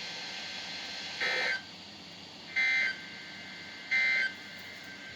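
Three short bursts of EAS SAME data tones from NOAA Weather Radio, each a buzzy two-tone warble, just under a second and a half apart. This is the end-of-message code that closes the Required Weekly Test.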